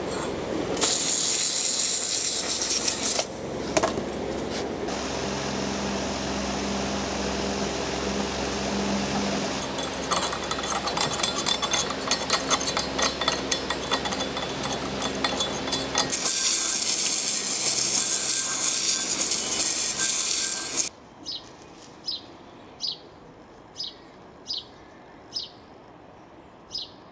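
Garden hose spray nozzle hissing as water jets moulding sand off freshly cast bronze pieces, in two loud spells, with rhythmic scraping and scratching between them as the burnt-on sand is worked off the castings. Near the end, quieter, a run of about seven light clicks under a second apart.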